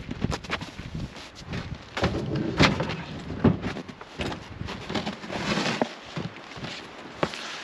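Sheets of plywood knocking, thudding and scraping as they are pried up, lifted and stood on edge, with repeated sharp wooden knocks throughout.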